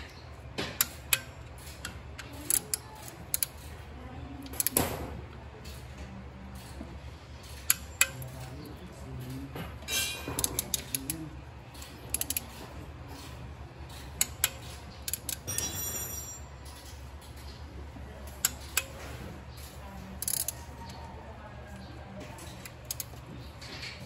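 Socket wrench tightening timing chain guide bolts: scattered sharp metallic clicks and clinks of the tool on the bolts, with quick runs of ratchet clicking about ten seconds in and again near sixteen seconds, over a steady low hum.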